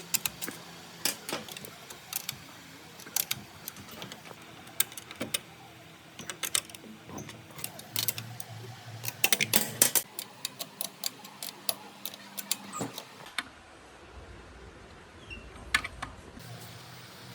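Irregular sharp clicks and clinks of metal parts and hand tools being handled, some in quick clusters about halfway through, over a faint low hum.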